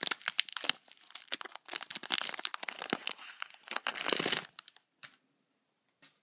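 Foil wrapper of a Pokémon trading card booster pack crinkling and tearing as it is ripped open by hand, with a louder rustle about four seconds in; the crackling stops about four and a half seconds in.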